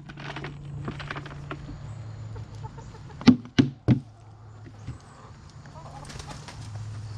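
Chickens clucking, with three sharp knocks in quick succession about three seconds in, over a low steady hum.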